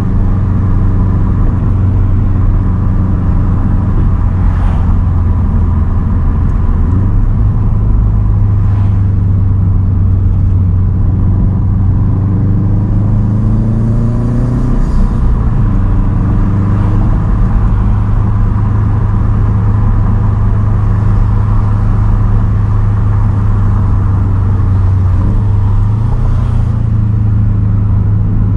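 2010 Subaru WRX STI's turbocharged 2.5-litre flat-four through a titanium straight-pipe exhaust, running steadily at cruise. Its pitch climbs gradually about halfway through, drops back suddenly, and steps up slightly again near the end.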